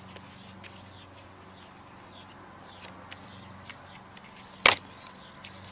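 A low steady hum with a few faint scattered clicks, and one sharp knock near the end.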